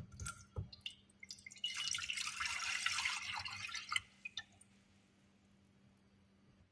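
Water poured into a saucepan for about two seconds, with a few light knocks of handling before and after.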